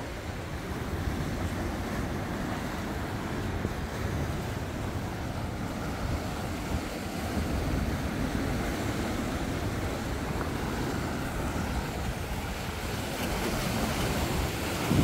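Sea surf washing against a rocky shore, a steady rushing noise, with wind buffeting the microphone.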